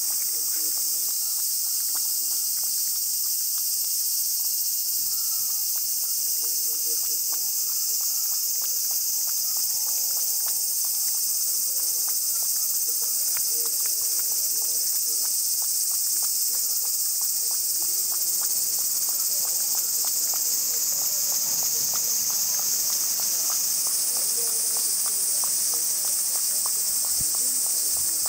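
Loud, steady, high-pitched drone of insects, with a cat lapping water from a plastic bucket underneath: faint quick ticks of the tongue, about four a second, plainest in the second half.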